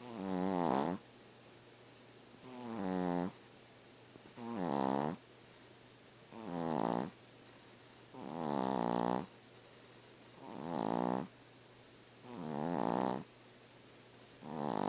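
Sleeping dog snoring in a steady rhythm: eight snores, about one every two seconds, each lasting about a second and swelling in loudness before it cuts off.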